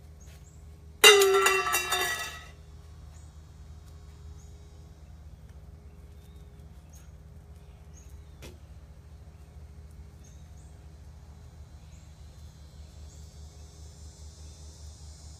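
Metal dog bowl dropped onto concrete: one sudden loud clang about a second in, ringing on and fading over about a second and a half.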